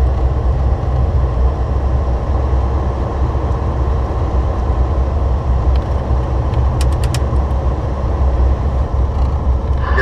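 Steady low drone of a Volvo 670 semi truck heard from inside the cab while driving: engine and tyre noise on a slushy, sanded highway. A few faint clicks come about seven seconds in.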